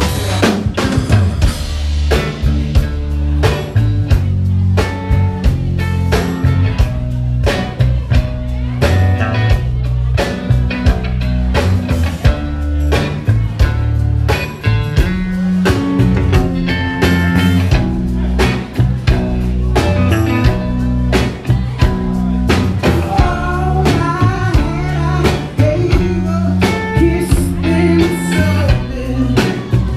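Indie blues band playing: a drum kit keeping a steady beat under a bass guitar line, with keyboard and guitar, and a voice singing in places.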